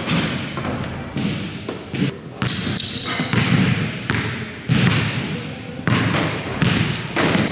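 Basketball dribbled on an indoor gym floor, several separate bounces about a second apart, each echoing in the hall.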